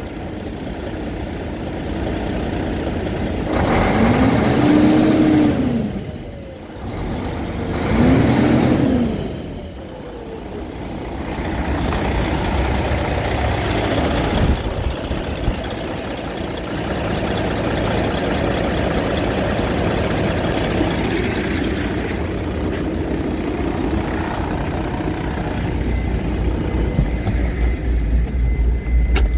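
Mercedes OM 906 LA inline-six turbodiesel revved twice, the engine note rising and falling each time, then running steadily. A brief high hiss comes about twelve seconds in.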